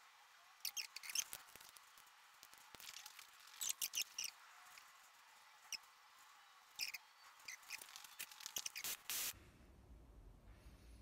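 Soldering a wire joint with an electric soldering gun: irregular clusters of crackling and spitting as the solder and flux melt on the hot joint, stopping suddenly near the end.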